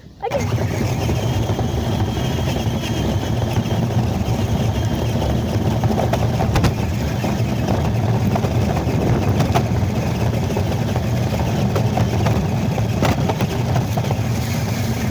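RC car driving: a steady rumble of its motor and tyres mixed with wind noise on the microphone, with a few sharp knocks along the way.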